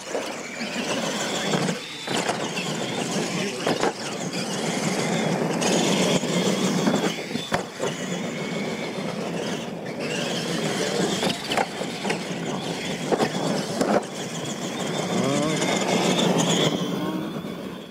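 Radio-controlled monster trucks racing on a dirt track: their motors whine, the pitch rising and falling as they speed up and slow down, with a few sharp knocks.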